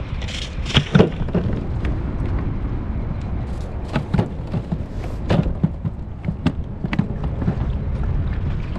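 Wind rumbling on the microphone on an open kayak, with scattered thumps and knocks, the sharpest about a second in and a few more between four and seven seconds in.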